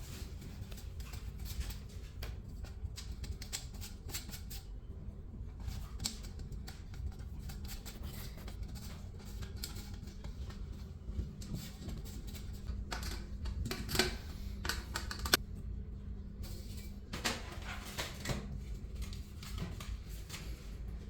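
Scattered light clicks and knocks of parts and packaging being handled, heaviest about two-thirds of the way through, over a steady low hum.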